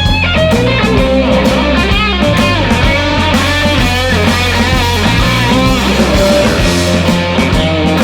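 Electric blues-rock band playing an instrumental section: lead electric guitar playing bent, wavering notes over electric bass and drum kit.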